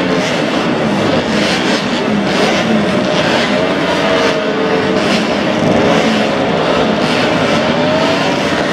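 Engines of several vintage racing motorcycles built before 1972, running hard together. Their pitch rises and falls as the riders rev and shift.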